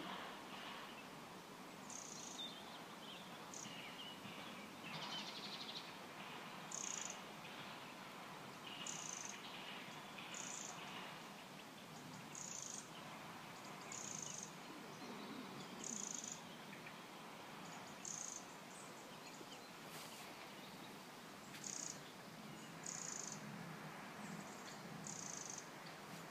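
Faint woodland ambience: a steady hiss with a short high-pitched chirp repeating every one to two seconds.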